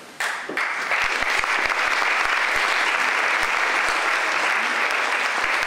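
Audience applause. It starts sharply just after the opening and holds steady as a dense, even clapping.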